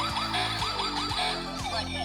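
Electronic siren from the sound module of a toy UAZ Bukhanka police van: a fast yelping sweep repeating about five times a second, which stops shortly before the end. Steady music plays underneath.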